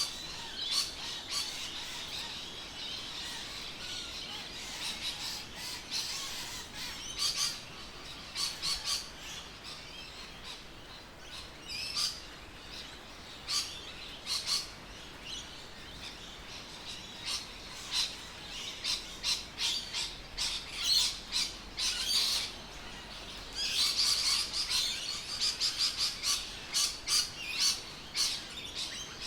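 Birds chirping: many short, high calls coming in bunches, over a faint steady outdoor background.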